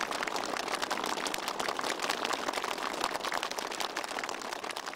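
Crowd applauding: many people clapping at once, steady and dense.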